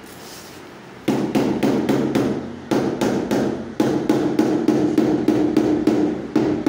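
White rubber mallet tapping ceramic wall tiles to seat them on the wall. Quick runs of strikes, about four a second, start about a second in, with short breaks between runs.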